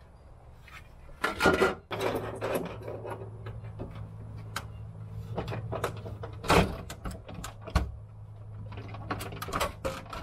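Plastic interior trim panels being handled and moved: a series of knocks, clicks and clatters, loudest about a second and a half in and again around six and a half seconds, with a cluster near the end. A low steady hum runs underneath from about two seconds in.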